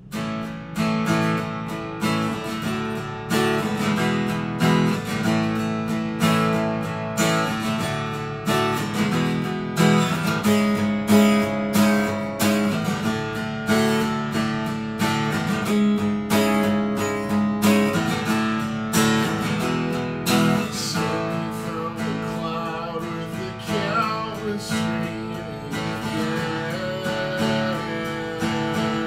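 Acoustic guitar strummed in a steady rhythm of chords, starting right at the beginning. A man's singing voice comes in over the guitar in the later part.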